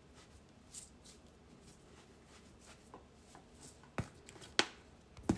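Faint rustling and light taps as dried basil is shaken from a large plastic shaker jar over raw chicken in a plastic bowl. In the last second and a half come three sharp knocks, the loudest sounds.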